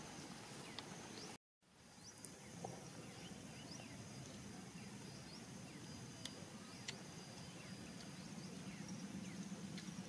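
Faint outdoor nature ambience: a steady high insect trill with scattered short bird chirps over a soft hiss. The sound cuts out completely for a moment about one and a half seconds in.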